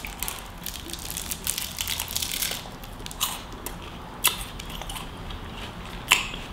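Crunching as a White Kinder Bueno wafer bar is bitten and chewed: a dense run of crisp crunches for about two and a half seconds, then a few separate sharp crunches, the loudest near the end.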